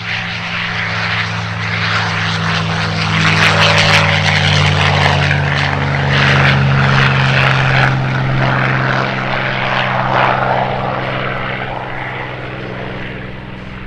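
P-51D Mustang's Merlin V-12 engine and propeller in a fly-by. The engine note is steady and loud, swelling to its peak around the middle and fading toward the end.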